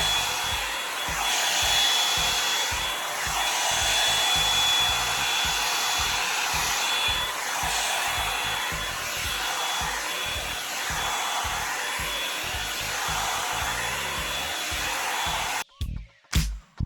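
Revlon Salon One-Step hair dryer blowing on its highest setting: a steady rushing of air with a thin whine, swelling and dipping every couple of seconds as it is moved over the hair. It cuts off abruptly near the end.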